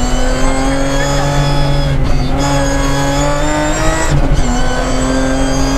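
Interior sound of a BMW 325 Group A rally car's straight-six engine pulling hard under acceleration, its pitch climbing, with a short dip in revs about two seconds in and a drop about four seconds in before it climbs again.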